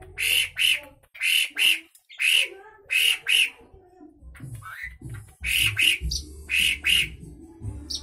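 Asian pied starling (jalak suren) calling loudly in full voice: harsh, squawky notes, mostly in quick pairs, repeated about once a second, with a short pause around the middle.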